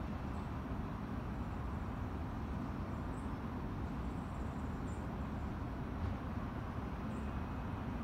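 Steady low outdoor rumble, with a few faint, short high chirps.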